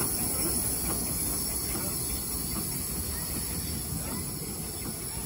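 Small Belgian tram steam locomotive pulling away, with a steady high steam hiss over a low running rumble that slowly fades as it moves off.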